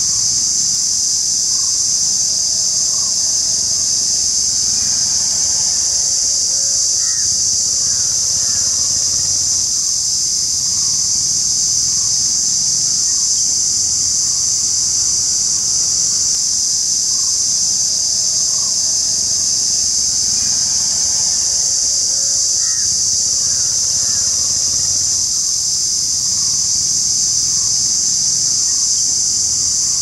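Cicadas buzzing in a loud, steady, unbroken high-pitched drone, with faint bird chirps now and then.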